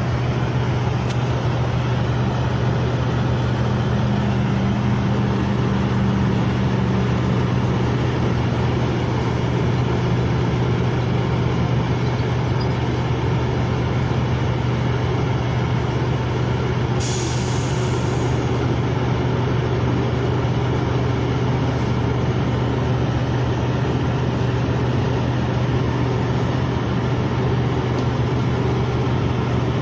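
Steady low drone of idling semi trucks. About halfway through comes a short hiss of air, a truck's air brakes releasing.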